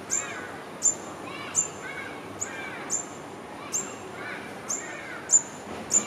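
Olive-backed sunbird calling: a sharp, high-pitched note repeated about every three-quarters of a second, each a quick downward flick, with softer, lower chirps between the calls.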